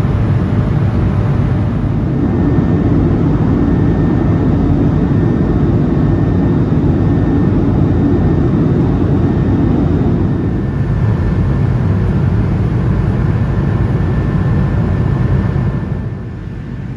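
Steady cabin noise of an Airbus A220-300 in flight, heard from inside the cabin: a deep, even rush of airflow with the drone of its Pratt & Whitney PW1500G geared turbofans and a faint steady whine above it. It drops in level shortly before the end.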